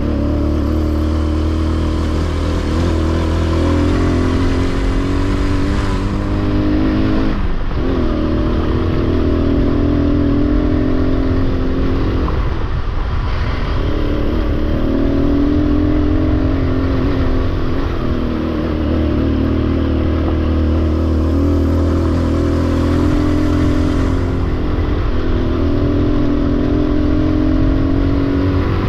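Victory MRX Arizona 200 motorcycle's single-cylinder engine running under way, its pitch climbing and then dropping briefly at gear changes several times, over a steady low rumble.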